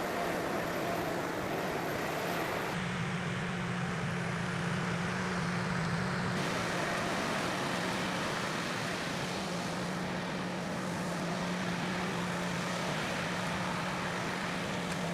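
Diesel engine of a heavy forestry machine running steadily with an even low hum, with abrupt shifts in the sound about 3 and 6 seconds in where the footage is cut.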